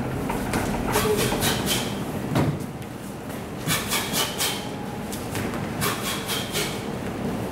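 A boxer's footwork and shadow punches during a ladder drill: quick runs of three to five short, sharp sounds from his steps and punches, coming in bursts about every two seconds, with a dull thud about two and a half seconds in.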